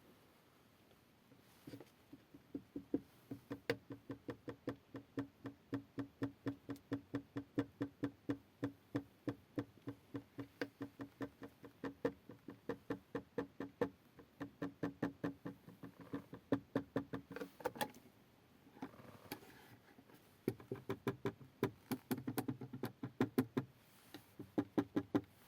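Squeak from a Kia car repeating about three to four times a second in a steady rhythm, in one long run and then a shorter one after a pause of a couple of seconds.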